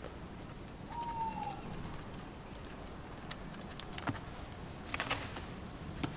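A little owl gives one short whistled call that falls slightly in pitch, about a second in. A few sharp clicks and ticks follow later over a steady faint hiss.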